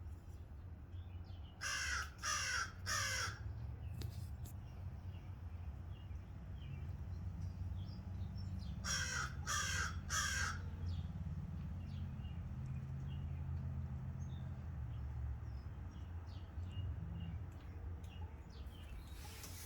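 Crows cawing: a run of three caws a couple of seconds in, and another run of three about nine seconds in, over a steady low rumble.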